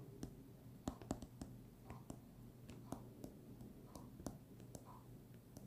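Faint, irregular clicks and taps of a stylus tip writing on a tablet's glass screen.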